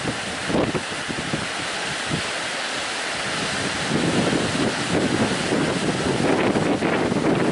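Strong wind buffeting the microphone over the rush of breaking sea waves, growing louder about halfway through.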